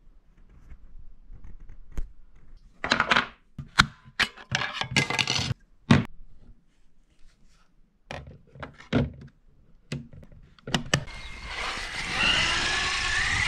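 Clicks, knocks and rustling from handling a radio-controlled car and its pistol-grip transmitter. About eleven seconds in, the Reely Eraser RC truck's electric motor starts whining as the truck drives on dirt, with a steady rushing noise under it; this is the loudest part.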